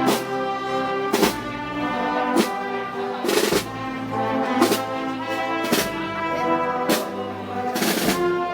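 Brass band playing a slow festival march: sustained brass chords over a heavy drum and cymbal strike about once a second.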